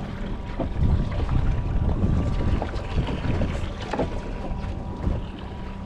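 Wind buffeting the microphone on an open fishing boat: an uneven low rumble that rises and falls in gusts, over a faint steady hum and a few small clicks.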